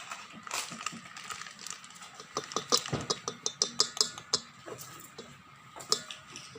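Kitchen utensils and dishes clinking and clattering as ingredients are handled, with a quick run of sharp clinks in the middle and a single one near the end.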